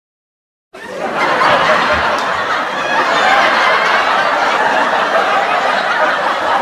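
Sitcom laugh track: a studio audience laughing together, cutting in abruptly out of silence about a second in and holding steady and loud.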